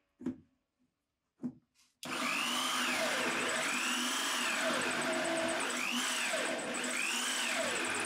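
Two light knocks, then about two seconds in a power drill mounted in a homemade wooden drill press starts up, driving a hole saw into plywood, with a shop vacuum running on the dust-extraction hose. The steady machine noise carries a whine that rises and falls as the cut is fed.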